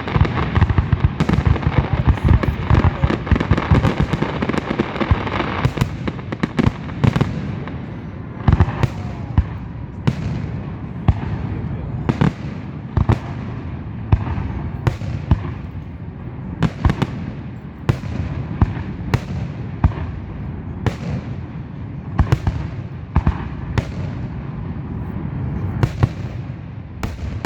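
Aerial fireworks going off. For the first several seconds the booms and crackles come thick and overlapping, then they continue as a string of separate sharp bangs, about one or two a second, over a low rumble.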